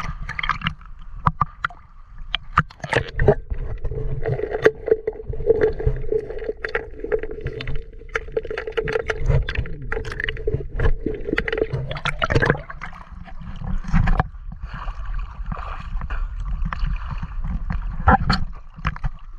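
River water sloshing and gurgling against a camera bobbing at the waterline, with many sharp splashes and knocks. Through the middle few seconds, while the camera is under the surface, the sound turns muffled with a steady hum.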